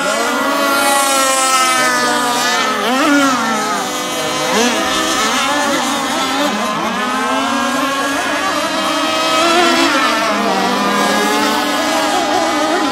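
Several two-stroke gasoline RC racing boats running flat out together, their high-pitched engine whines overlapping and rising and falling in pitch as the boats pass and turn.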